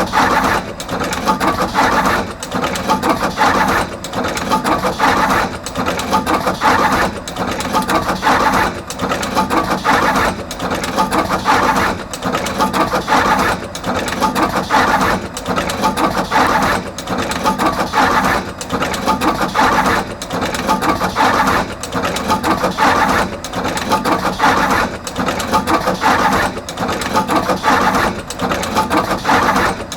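Artos CR22 wire crimping machine running continuously, crimping terminals onto both ends of each wire, with its cycle repeating just under every two seconds.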